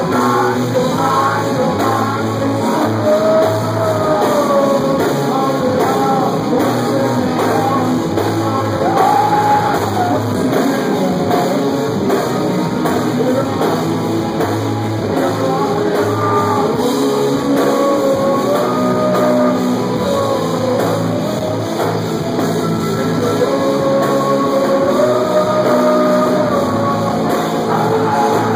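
Rock band playing live: electric guitar and band with a singer singing into a handheld microphone, loud and steady throughout.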